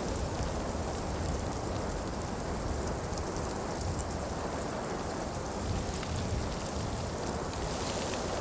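Heavy snowfall ambience: a steady hiss with a low rumble beneath and scattered faint ticks.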